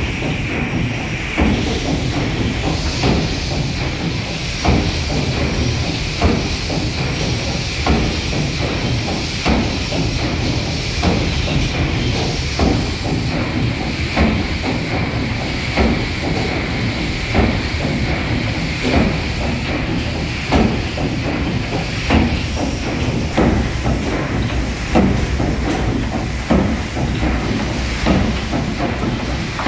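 Paddle steamer Waverley's three-cylinder triple-expansion steam engine running: a steady steam hiss under rhythmic clanking of the cranks and valve gear, with a heavier knock about every second and a half and lighter knocks between.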